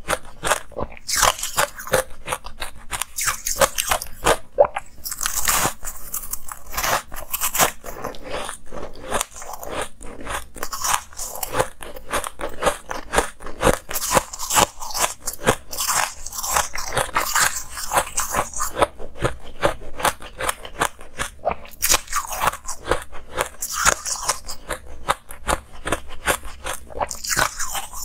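Close-miked biting, crunching and chewing of balls of packed, coloured shaved ice, a dense run of rapid crunches with louder bursts of crunching every several seconds.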